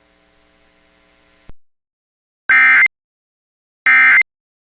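Emergency Alert System end-of-message tones: two short, identical bursts of SAME digital data, a buzzy two-tone warble, about a second and a half apart, signalling that the alert is over. Before them a faint steady hum, cut off by a click about a second and a half in.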